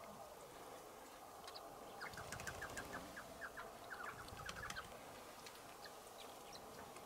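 Helmeted guineafowl calling: a rapid run of short, sharp notes, about six a second, lasting roughly three seconds, with a few fainter high chirps around it.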